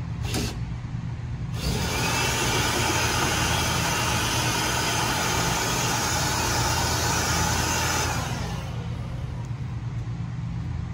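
Cordless drill running: a short blip at the start, then a steady run of about six and a half seconds, turning a long extension rod that reaches up to a ceiling winch. A steady low hum runs underneath.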